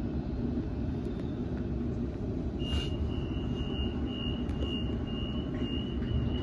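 Door-closing warning chime of a Sydney Trains Waratah A-set: a high beep repeating about twice a second, starting a little over two and a half seconds in, over the steady low hum of the stationary train's equipment.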